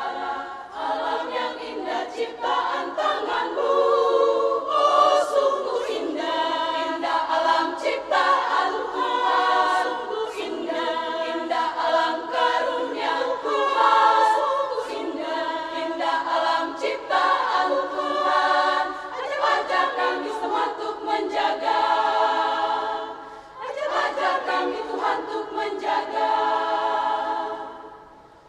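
Women's choir singing in close harmony, unaccompanied, with a brief breath between phrases about 23 seconds in and a phrase ending just before the close.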